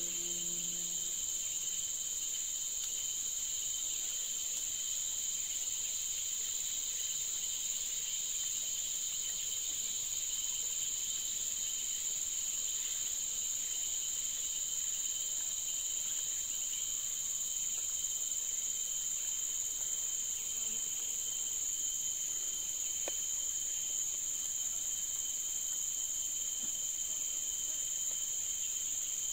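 Steady, high-pitched chorus of forest insects, an unbroken drone that holds the same level throughout.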